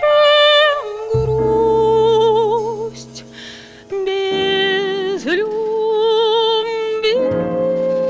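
A woman singing a slow song in a jazz arrangement, accompanied by piano and double bass. She holds long notes with wide vibrato, pauses briefly about three seconds in, and sustains a long note near the end.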